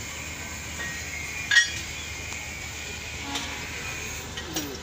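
Steel hand tools clinking against metal: one sharp, ringing clink about a second and a half in and a fainter one later, over steady background hiss.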